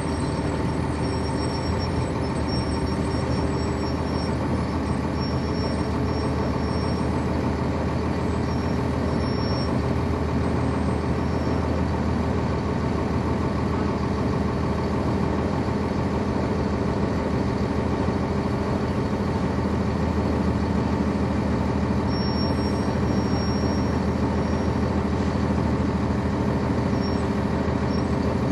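Cab of a 1999 NovaBus RTS transit bus, its Cummins ISC inline-six diesel engine running steadily, heard from on board.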